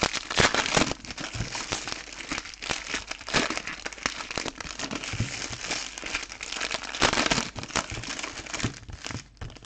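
Foil wrappers of 2020 Donruss Optic football card packs crinkling and rustling in the hands as the packs are handled and opened, in irregular bursts.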